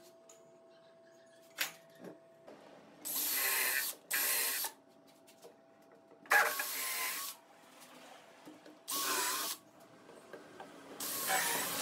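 Spraying hiss in five short bursts of about a second each, with a faint steady hum between them.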